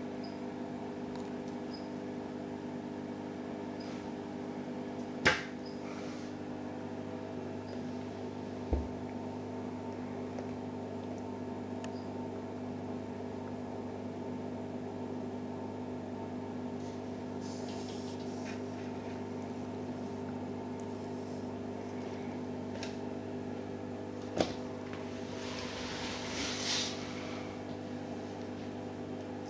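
A steady mechanical hum made of several held tones, broken by a sharp click about five seconds in, a low thump near nine seconds, another click around twenty-four seconds and a brief rustle just after.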